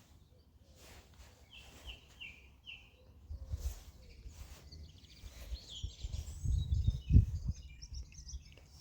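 Small birds chirping, with a quick run of four short notes about a second and a half in. Low rumbling surges come in about three and a half seconds in and again from about six seconds, the loudest just after seven seconds.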